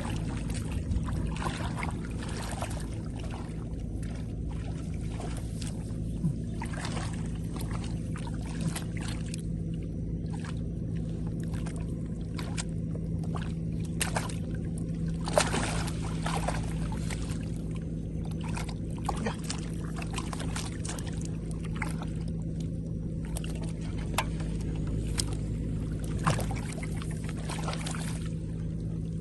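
A small engine running steadily, with frequent short splashes and sloshes of water over it.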